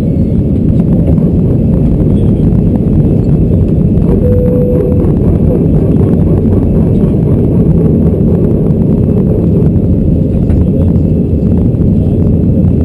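Cabin noise of an Airbus A319-114 in its initial climb after takeoff: its CFM56 engines running at climb thrust together with airflow over the fuselage, heard as a loud, steady, low roar through the cabin.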